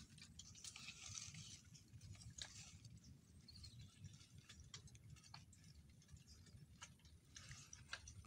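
Near silence: a faint low rumble with scattered soft clicks.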